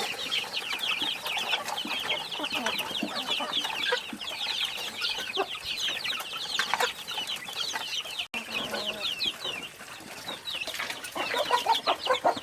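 A flock of chicks peeping continuously, many short, high, falling peeps overlapping, with some lower clucking near the end.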